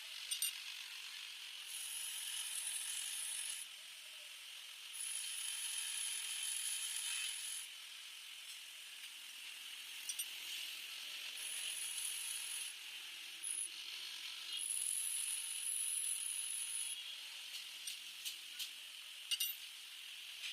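Workshop machine work: a steady mechanical running sound, with four stretches of high-pitched whine lasting one to two seconds each, and scattered sharp clicks.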